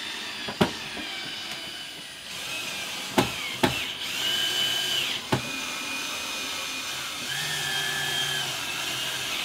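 Cordless drill driving screws into an electric fireplace insert. Its motor whines in short runs of about a second that rise and fall with the trigger, with a few sharp knocks between them.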